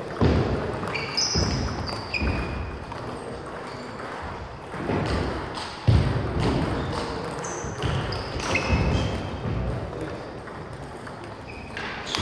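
Table tennis rally: the celluloid ball clicking off rubber paddles and the table top, several clicks a second, with a few short high squeaks of shoes on the wooden gym floor.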